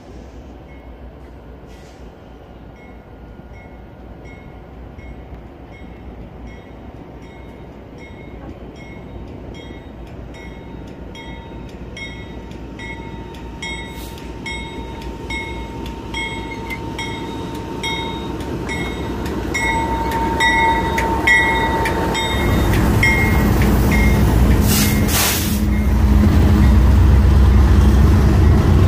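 BNSF GE diesel freight locomotives approaching and passing close by. A low rumble builds steadily and the engines run loudly as they pass near the end, while a bell rings about twice a second, growing louder as the train nears. A short hiss comes near the end.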